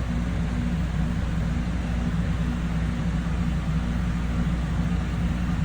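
Rheem Hybrid Platinum heat-pump water heater running: a steady hum of its compressor and fan blowing air.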